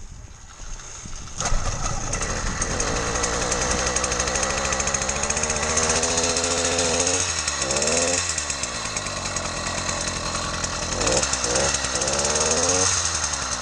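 Small two-stroke single-cylinder engine of an 80cc motorized bicycle kit running while warming up. It comes up sharply about a second and a half in, then is revved, the pitch climbing and dropping around the middle and again near the end.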